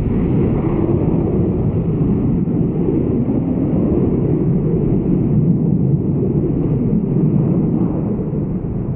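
Jet noise from an RAF Eurofighter Typhoon's twin EJ200 turbofan engines during a display flight: a loud, deep, steady roar that swells and eases slightly.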